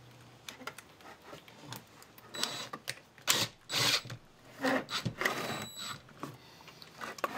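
Cordless impact driver driving a #8 × 1¼-inch pocket-hole screw into an OSB joint, running in several short bursts with the loudest about halfway through.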